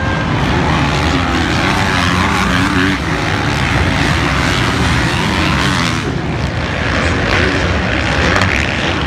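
Several motocross bikes racing on the track, their engines revving up and down as the riders work through the corners and jumps.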